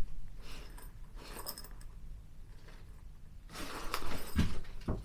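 A hiking backpack being handled: faint rustling of the pack's fabric and straps with a few small clicks from its fittings, busier near the end with a short click.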